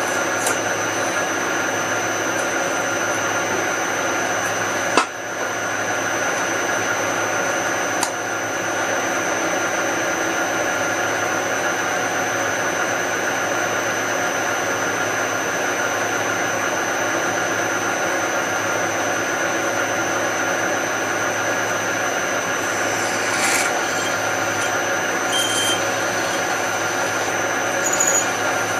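Drill press running steadily while drilling holes in metal vise parts, with a sharp knock about five seconds in and a lighter click about three seconds later.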